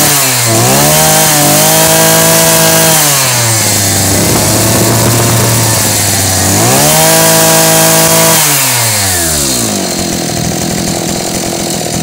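Small carburetted engine running while its air-fuel mixture is adjusted. Its speed rises twice and holds for about two seconds each time before falling back, then it settles lower and rougher near the end.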